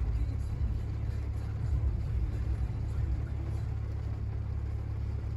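A car engine idling, heard from inside the cabin as a steady low rumble.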